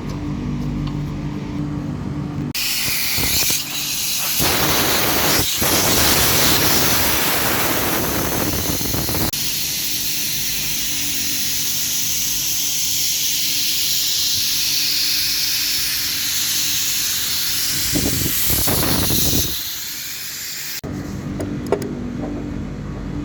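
Refrigerant gas being vented from a 5-ton ducted central air conditioner to empty the system before the compressor is removed. It is a loud, steady hiss that starts a few seconds in, surges louder twice, and cuts off suddenly near the end. A steady low hum is heard before and after it.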